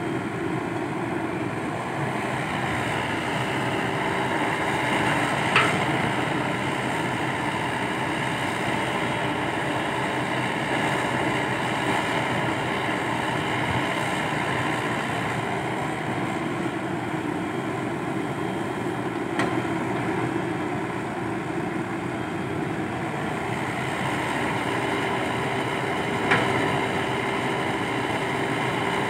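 Komatsu PC120-5 hydraulic excavator working, its diesel engine and hydraulics running steadily under load as it digs and swings loads of earth into a dump truck. Three sharp knocks stand out: one about five seconds in, one around twenty seconds and one near the end.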